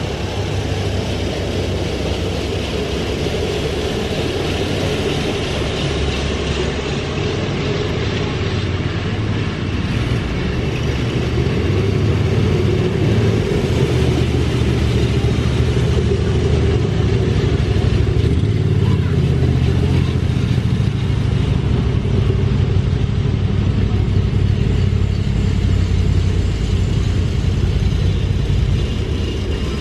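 A procession of railroad speeders, small motorized track cars, running along the rails as they pass one after another, their small engines droning steadily. The sound grows louder about a third of the way in as the nearer cars come by.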